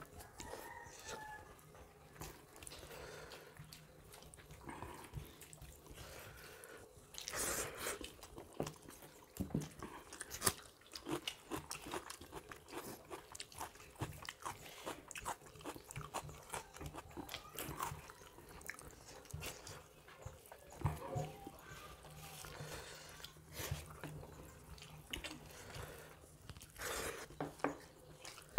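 Two people eating rice and curry by hand from steel plates: close-up chewing, crunching and mouth noises, with irregular short clicks as they eat.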